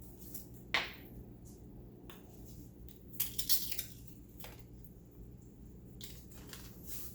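Crinkling and rustling of a taco seasoning packet being handled, in short bursts, with the busiest stretch about three and a half seconds in.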